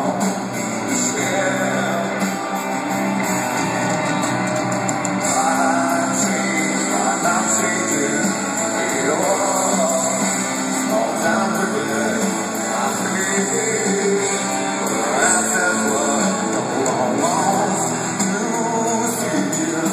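Live rock band playing a song with guitars and a lead vocal, heard with the echo of a large arena.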